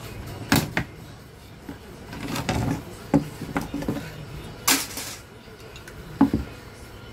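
Handling knocks and clatter from the circuit boards and chassis of a CRT TV as they are shifted and lifted out: a handful of sharp separate knocks over a low rustle of moving wires and boards, two of them louder, about two-thirds of the way through and near the end.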